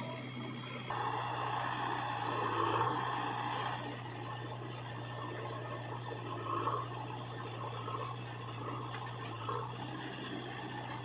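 Machine engine running with a steady low hum, getting busier and louder about a second in and wavering after that.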